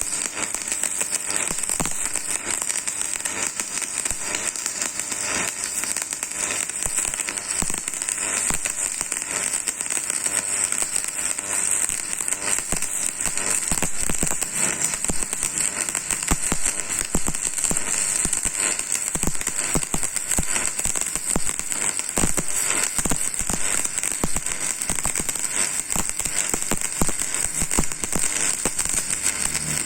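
Electric arc welding in progress: a steady, continuous crackling and sizzling of the arc, with dense irregular spits and pops throughout.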